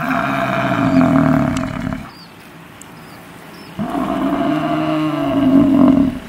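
Water buffalo mooing: two long, loud calls, the second beginning about four seconds in.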